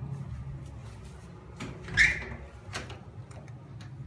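Sanki bathroom exhaust fan running with a steady low hum. About halfway through, a few short sharp rustles and knocks sound over it, the loudest about two seconds in.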